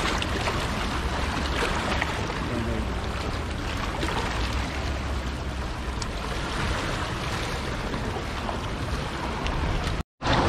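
Sea waves washing and splashing over the boulders of a rock jetty, a steady rush of surf with wind rumbling on the microphone. The sound cuts out for an instant near the end.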